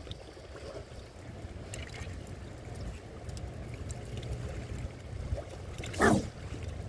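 Strong wind buffeting the microphone, a steady low rumble, with one short loud sound about six seconds in.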